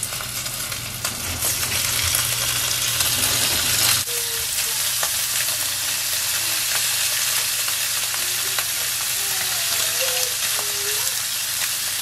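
Raw beef strips sizzling in very hot oil as they are laid one by one into a preheated Teflon frying pan. The sizzle builds over the first couple of seconds as more pieces go in, then holds steady.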